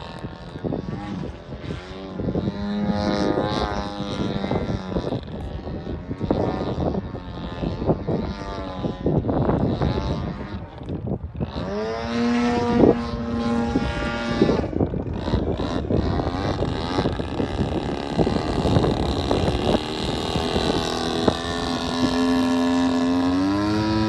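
Radio-controlled model biplane's engine and propeller, the throttle worked up and down through aerobatic manoeuvres so the pitch keeps rising and falling. Near the end it climbs to a steady higher note.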